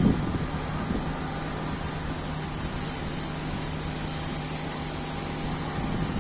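An engine running steadily: an even drone with a constant low hum and a faint high whine.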